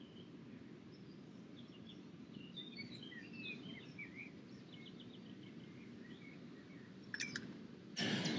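Small birds chirping and singing over a steady low background noise. Near the end there is a click, then a much louder noise cuts in suddenly.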